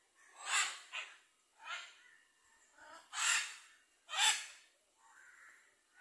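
Harsh, hoarse animal calls: five short, noisy cries with pauses between them, two close together near the start and the loudest two about a second apart later on.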